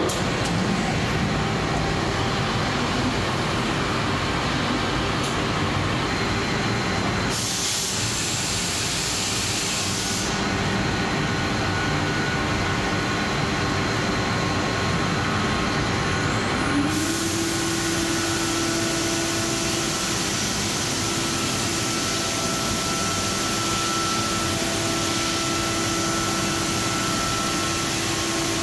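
HOMAG Centateq N-700 nesting CNC router running: a steady loud machine noise with a high air hiss that cuts in, stops and cuts in again. About two-thirds of the way through, a hum glides up in pitch and then holds steady.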